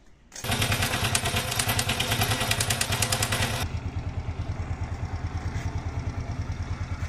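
Single-cylinder four-stroke engine of a 110cc Forza Max underbone moped, running after its timing chain was replaced. It starts about half a second in with a loud, rattly pulsing; after about three and a half seconds it turns quieter and smoother, idling evenly.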